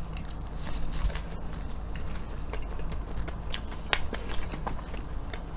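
Close-up chewing and biting of a forkful of Hershey's sundae pie: a run of short, sharp wet mouth clicks over a low steady hum.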